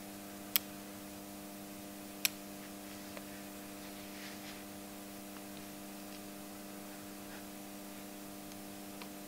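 Steady electrical mains hum, with two sharp clicks, about half a second and two seconds in, as a steel floating reamer holder is handled on the bench.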